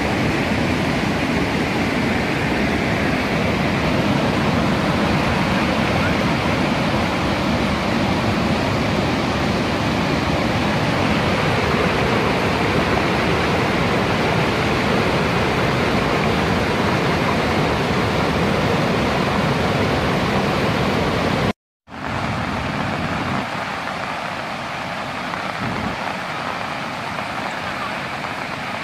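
Muddy floodwater rushing and churning, a loud steady rush of water. It breaks off for a split second about three-quarters of the way through and resumes a little quieter.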